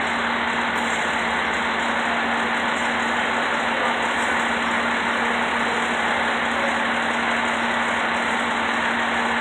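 Tower ladder fire truck's engine idling: a steady drone with a constant low hum underneath.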